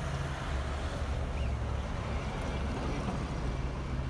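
A machine motor running steadily with a low hum.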